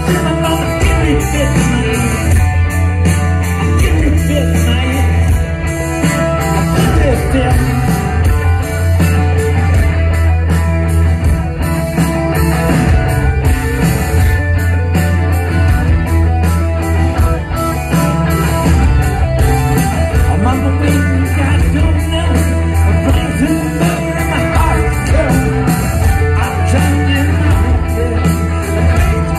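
Rock band playing live: electric guitars, bass and drums with a sung lead vocal, loud and bass-heavy as heard from the audience in a concert hall.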